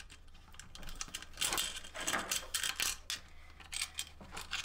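Hands working an indicator and its wiring free of a motorcycle's plastic rear fender: a run of small clicks, taps and rustles, busiest in the middle and again near the end.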